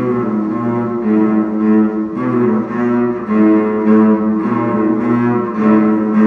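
Cello played with the bow: long sustained notes, moving from one pitch to the next about once a second.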